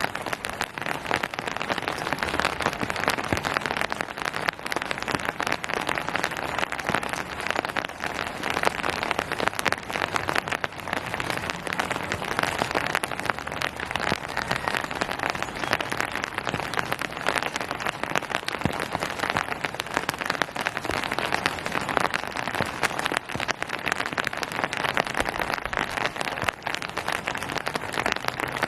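Steady rain falling on a hard surface, a dense, even patter of many drops.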